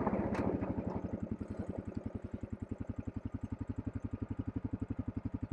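Honda Rubicon ATV's single-cylinder four-stroke engine idling, settling down from higher revs in the first second into an even chug of about eleven beats a second.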